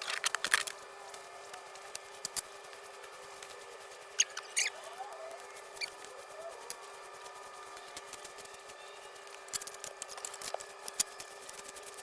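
Short bursts of rustling, clicking and scraping from hands handling plant and garden material: one at the start, one about four seconds in, and a longer run about ten seconds in.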